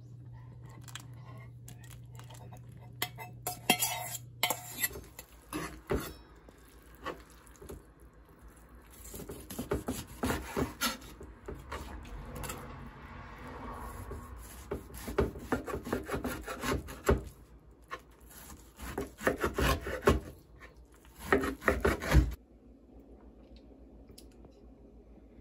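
A steady low hum for the first few seconds, then a kitchen knife cutting napa-cabbage kimchi on a wooden cutting board: clusters of knocks of the blade on the board that stop suddenly about 22 seconds in.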